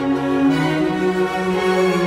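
Background music with slow, held notes that change pitch every second or two.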